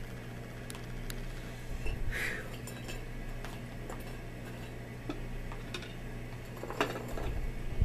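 Metal spoons clicking and scraping in plastic soup bowls as people eat, with scattered light clinks and a few quicker clicks near the end, over a steady low hum.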